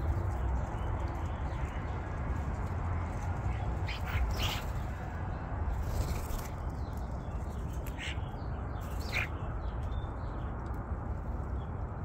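European starlings giving a few short, harsh calls, spaced a second or two apart, over a steady low rumble.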